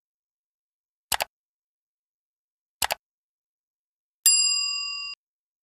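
Subscribe-button animation sound effects: two mouse-click sounds, each a quick double click, about a second and a half apart, then a bright bell chime ringing for just under a second before cutting off abruptly.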